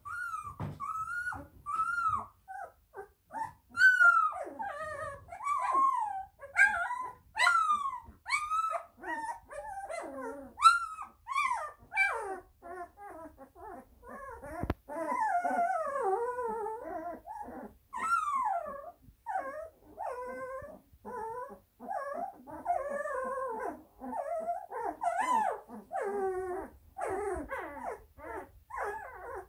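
Litter of young puppies whimpering and squealing: short high-pitched whines with falling pitch, one after another at first, then several puppies crying over each other through the second half.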